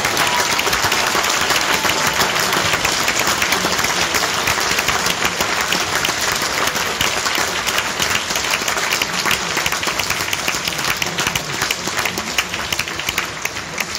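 Concert audience applauding: many hands clapping in a dense, steady patter that eases off slightly toward the end.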